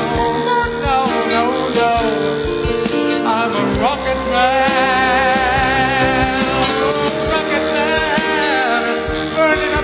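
A jazz band's live music: a lead melody line that bends and wavers with vibrato, with a quick upward slide a little before the middle, over sustained chords with guitar and a rhythm section, and no lyrics sung.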